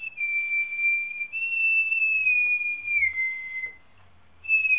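A person whistling a long, high, single note that wavers, stepping up and then sliding down in pitch. It breaks off about three-quarters of the way through and starts again near the end.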